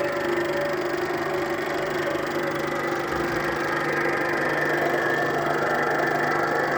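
Eumig Mark S 810 Super 8 sound projector running steadily, its mechanism whirring with a constant hum while the film's optical soundtrack plays through its speaker, the sound working again after two failed capacitors were replaced.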